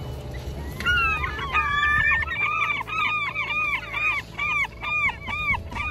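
A gull calling: a few drawn-out cries about a second in, then a fast run of short, arched yelping notes, about three a second, over a low rumble of wind and surf.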